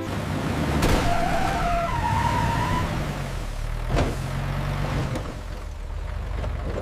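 A motor vehicle's engine running steadily with a low rumble, a sound effect of a vehicle driving up, with a couple of short knocks along the way.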